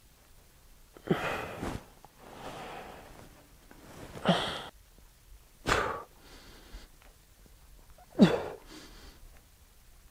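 A man's sharp, forceful breaths and grunts of effort as he unracks and squats a loaded barbell: four short loud bursts several seconds apart, some starting with a brief voiced grunt.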